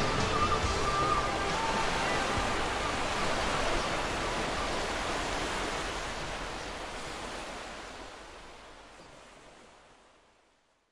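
Steady rushing of water, like a stream or waterfall, fading gradually to silence near the end. The last notes of music die away about a second in.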